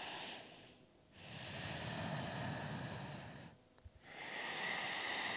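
A person breathing slowly and deeply, loud enough to hear, while holding a yoga pose. One breath ends just under a second in, the next lasts about two and a half seconds, and a third begins near four seconds.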